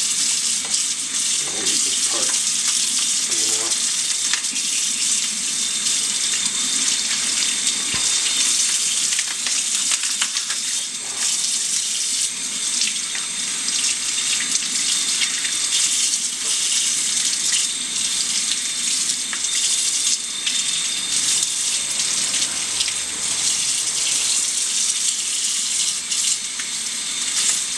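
Kitchen faucet running steadily, its stream splashing over a crab and into the sink as the crab is rinsed and cleaned by hand.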